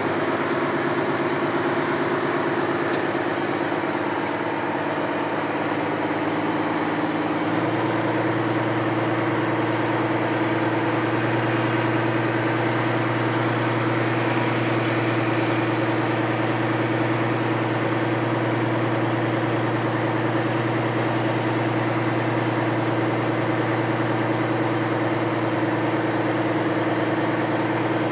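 Vehicle engine running steadily at low speed in first gear, heard from inside the cab. A lower steady tone joins the engine note about seven seconds in.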